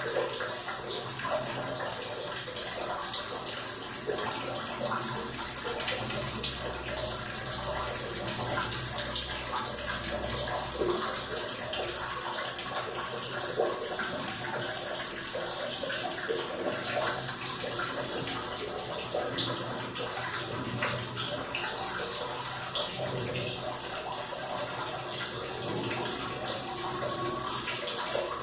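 Water running and splashing in a small bathroom during a bath, with many small splashes and knocks throughout.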